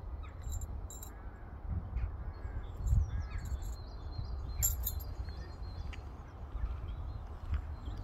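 Birds calling outdoors: a few short, harsh calls in the first three seconds, with scattered high chirps, over a steady low rumble.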